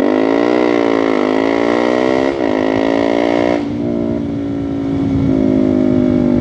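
KTM RC250 motorcycle engine running on the move. The revs rise and fall, shift suddenly in pitch about two and a half seconds in, then hold steady at cruise.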